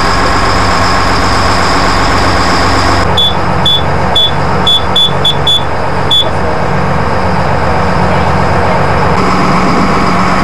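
Fishing boat's inboard engine running steadily under way, a loud constant drone. About three seconds in, a run of about eight short high electronic beeps comes over some three seconds, unevenly spaced.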